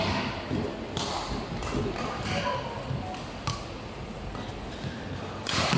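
Badminton rally: a few sharp smacks of racket strings striking the shuttlecock, spaced one to a few seconds apart, the strongest near the end, over shoes scuffing on the court.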